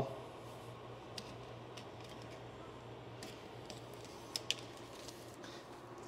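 Faint clicks and light scratching of a knife trimming the excess vinyl wrap film, over a steady low hum. The two sharpest clicks come close together about four and a half seconds in.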